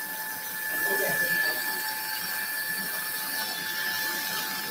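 Powered surgical bone drill running with a steady high whine as it bores through bone for a plate screw, getting a little louder about a second in; the drill bit is dull.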